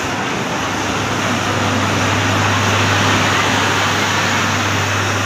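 Bangladesh Railway passenger train rolling along the platform: a steady rumbling noise of the moving coaches with a low steady hum that strengthens about a second and a half in.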